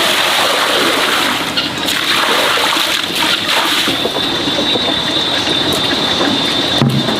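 Water splashing and running in a steady, noisy stream, with a thin high tone joining about halfway through.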